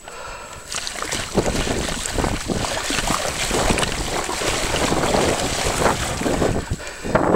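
Mountain bike tyres splashing and churning through flooded, muddy ruts, with wind buffeting the microphone. The splashing builds about a second in and eases off near the end.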